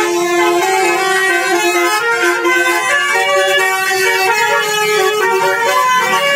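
Basuri telolet musical horn on a vehicle playing a loud tune: a run of held notes stepping up and down in pitch every fraction of a second.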